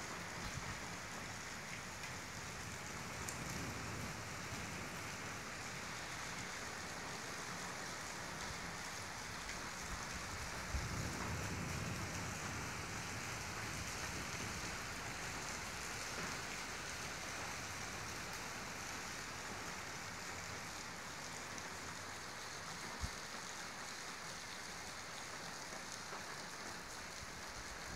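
Steady rain falling and splashing on surfaces. Two brief knocks stand out, about 11 and 23 seconds in.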